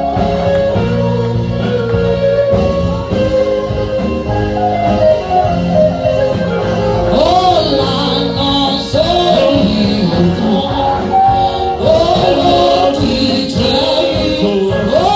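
Live gospel worship music: steady held instrument chords, with singing voices coming in over them about seven seconds in.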